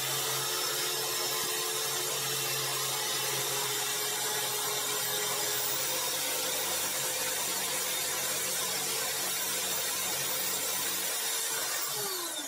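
ZUBR electric grinder running at full speed, its small abrasive stone grinding the tip of a steel drill bit. About 12 seconds in, the bit comes off the stone and the motor starts to wind down, its pitch falling.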